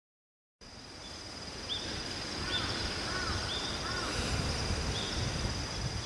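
Countryside ambience fades in after a moment of silence. An insect trill runs steadily and high. Short bird chirps come about four times over a low outdoor rumble.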